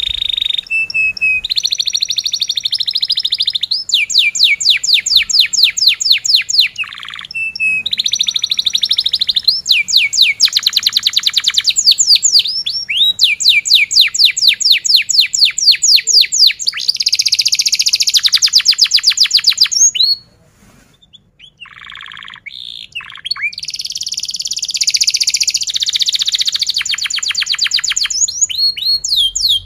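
Yellow domestic canary singing a long, loud song made of fast trills, each a run of rapidly repeated notes, switching to a new trill every second or two. About two-thirds of the way through it drops to a few soft notes, then picks up the full song again.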